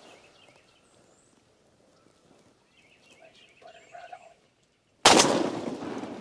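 Near quiet with a few faint bird calls, then about five seconds in a single loud gunshot that echoes away slowly: a hunter's shot at a wild turkey gobbler, which hits the bird.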